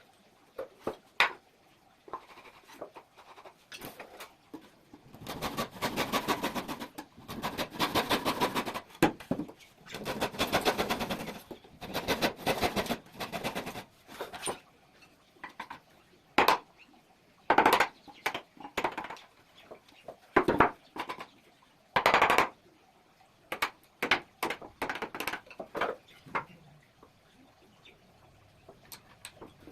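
Woodworking on a wooden window: runs of rapid rattling clicks, each lasting a second or two, then several separate sharp knocks and scattered lighter taps.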